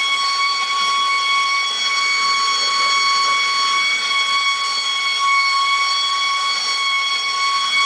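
Gas torch flame heating a bare car body panel for tinning, running with a steady hiss and a steady high whistle.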